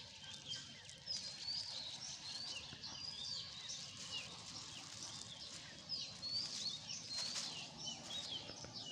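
Small birds chirping, many quick high chirps repeated close together, with a brief rustle late on.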